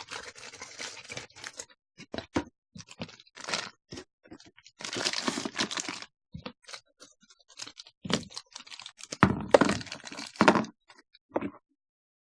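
Plastic and cardboard packaging being handled and torn open, crinkling and crackling in irregular bursts, with the loudest crackles about two-thirds of the way in. It stops abruptly shortly before the end.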